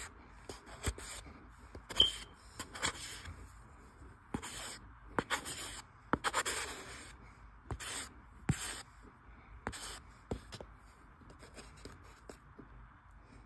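Cornstarch being scraped and pressed with a utensil on a plate around a bar of soap: irregular short, crunchy scrapes, the loudest about two seconds in, fewer and fainter near the end.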